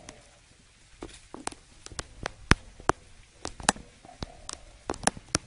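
Sri Lanka junglefowl foraging in leaf litter: about sixteen sharp clicks and taps, unevenly spaced, the loudest about halfway through.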